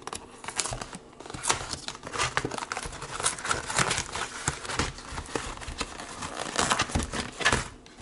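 Packaging of frozen breaded fish burgers being opened and handled, crinkling and tearing in an irregular run of crackles.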